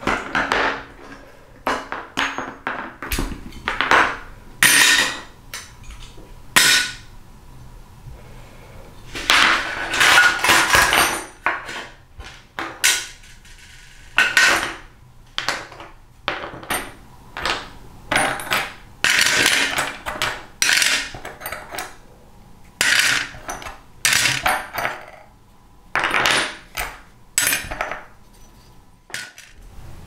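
Irregular metallic clinks and scrapes as an old rigging pocket knife is taken apart with a screwdriver, steel parts prying loose, with longer scraping stretches and parts clinking into a metal tray.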